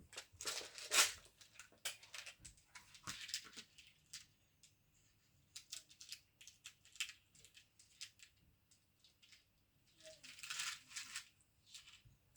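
Small metal screws and hand tools clicking and rattling as they are picked through and handled on a workbench, in irregular bursts with quieter gaps between.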